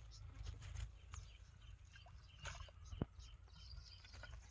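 Quiet outdoor sounds: light rustling and scattered small clicks from handling fishing line in dry grass, with one sharper click about three seconds in and faint bird chirps.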